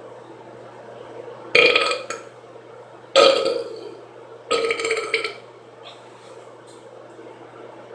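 A woman burping loudly three times, about a second and a half apart, each burp lasting up to about a second.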